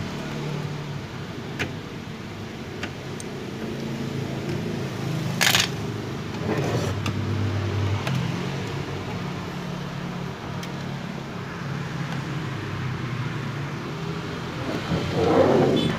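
Clicks, knocks and a brief clatter from an audio mixer's chassis being tipped and opened, with the loudest bursts about five seconds in and near the end. Under it runs a steady low engine-like hum of traffic.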